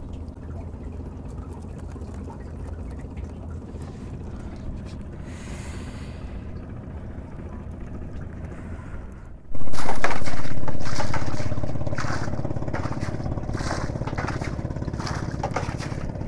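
A steady low hum, then about nine and a half seconds in a sudden jump to a loud boat engine running with a rapid beat, easing down to a steady level.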